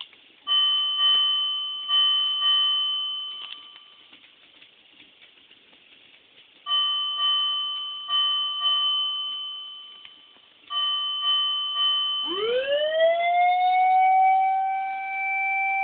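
SAP-50FBLK siren amplifier sounding its electronic tones. First comes a ringing tone, struck several times in quick groups, each strike dying away. About twelve seconds in, a siren tone winds up from low pitch and holds steady.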